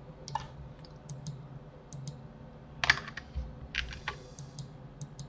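Scattered clicks of a computer keyboard and mouse, with a quick cluster of key presses about three seconds in and another just before four seconds, over a faint low steady hum.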